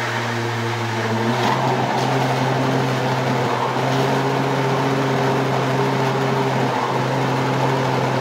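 Electric countertop blender running at a steady speed, its motor giving a constant hum while it mixes a thick cornmeal cake batter that has just been thinned with water.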